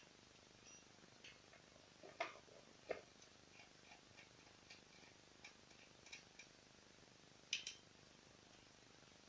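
Near silence broken by faint clicks and taps from hands handling a switched-off Ruris 367 chainsaw, with three sharper clicks about two seconds in, a second later, and near the end. Tiny faint high ticks and chirps sit underneath.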